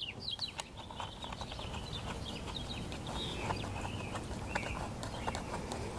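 Light clicks and taps of hands threading the bar nuts finger tight onto the studs of an electric chainsaw, metal against plastic, with faint bird chirps in the background.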